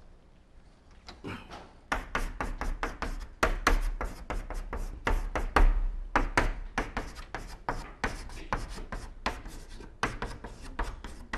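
Chalk writing on a blackboard: a quick run of short sharp taps and scrapes as characters are written, starting about two seconds in.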